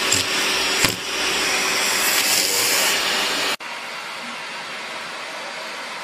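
Vacuum cleaner running with a loud, even hiss and a single knock just before a second in. It stops abruptly about three and a half seconds in, leaving a quieter steady hiss.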